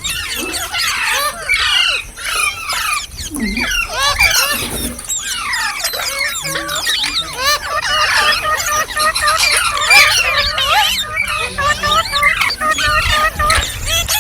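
Green parrots chirping and squawking, with many short, shrill calls overlapping without a break.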